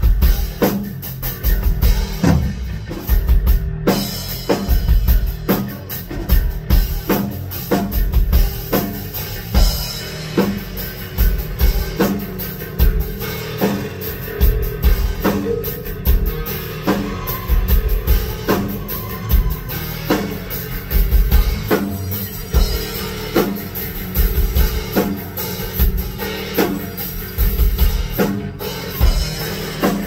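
Live prog-rock band playing, with a drum kit keeping a steady beat of bass drum and snare hits over heavy, sustained low bass lines from a Chapman Stick.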